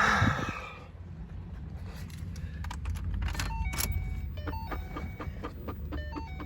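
A brief loud rustle, then car keys jangling and clicking. From about three and a half seconds in, a repeating run of short electronic beeps at several stepped pitches joins them.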